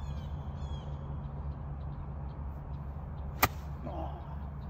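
A golf iron strikes the ball once, a single sharp click about three and a half seconds in.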